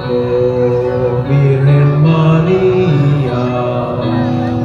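Background music: a Tagalog devotional hymn to the Virgin of Peñafrancia, moving in slow, long-held notes.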